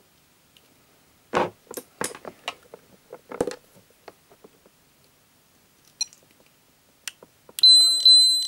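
Clicks and knocks from handling test probes and a capacitor, then near the end an Atlas ESR70 ESR meter gives two high beeps back to back, signalling it has finished measuring the capacitor.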